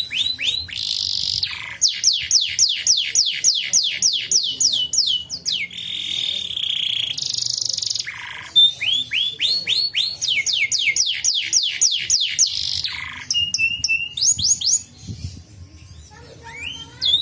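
Domestic canary singing: fast runs of high, downward-sweeping whistled notes, several a second, alternating with rapid rolls, with a brief pause near the end.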